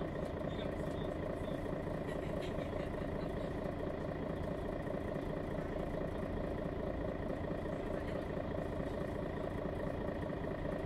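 Mercedes-Benz Citaro G articulated bus's Daimler OM 457 hLA six-cylinder diesel running steadily, its pitch and loudness even throughout, with no kickdown.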